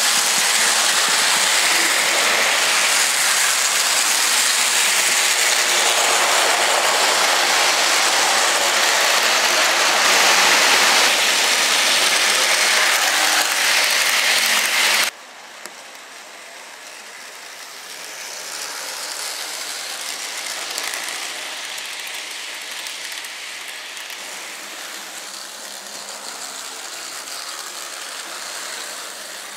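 HO scale model train running on sectional track: the wheels clatter over the rails and the motor and gears whir. It is loud and close for the first half, then drops suddenly to a much quieter run about halfway through.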